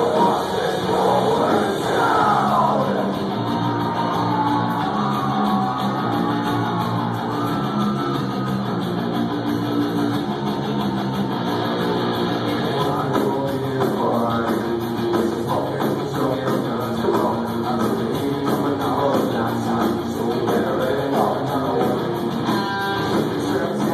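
Live rock band playing loud, with distorted guitars, drums and singing, recorded on a phone.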